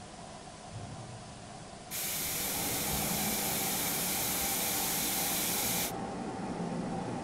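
Metal stovetop kettle on an electric cooker hissing with steam for about four seconds, starting and stopping abruptly.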